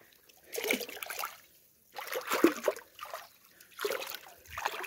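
Shallow water trickling and splashing in short, irregular bursts close to the microphone, stirred by a hand moving in it.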